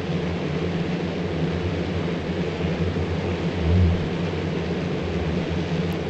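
Steady drone of a honey bee swarm pouring out of a hive entrance, thousands of wings humming together, a little louder for a moment near the middle. It is the sound of a colony in the act of swarming, before the queen has left.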